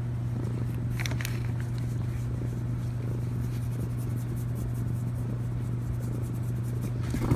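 Steady low background hum, with faint rustling and scratching of fingers rubbing a kitten's fur, briefly a little louder about a second in.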